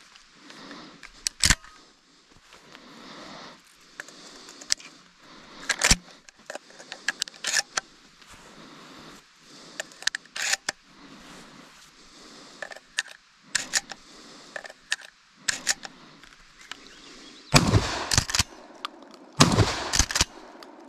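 1920-made Winchester Model 1897 12-gauge trench shotgun being handled: scattered metallic clicks and clacks as shells are loaded and the slide action is worked. Near the end come two loud shotgun blasts, about two seconds apart, each with a ringing tail.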